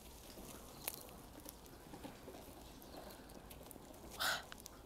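Faint soft ticks and small rustles of gloved hands peeling the charred skin off a grilled hagfish, with one short swish about four seconds in.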